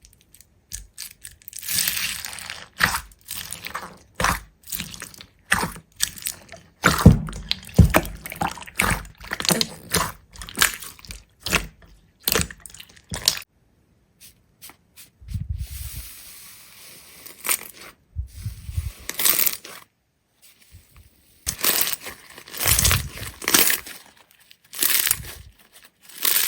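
Close-up crunching and crackling: dense runs of sharp clicks and scrapes that stop and start, with brief pauses about halfway and about three-quarters through.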